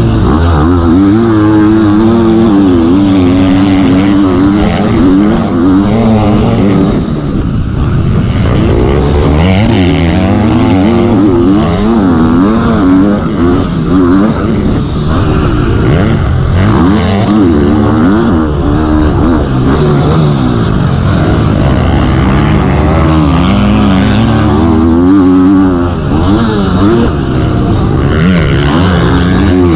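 KTM 250 motocross bike's engine heard onboard, revving hard, its pitch climbing and dropping again and again as the rider accelerates, shifts and backs off.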